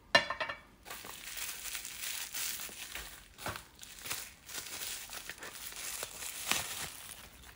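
Packaging around a nail polish bottle being unwrapped by hand: crinkling and crumpling of wrapping material, opening with a short loud burst and then continuing as dense crackling.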